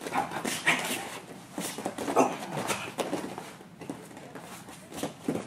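Gloved strikes smacking into a sparring partner's raised guard and body in a quick series of sharp slaps and thuds, mixed with short forceful breaths, as a double jab and low cross run into a clinch.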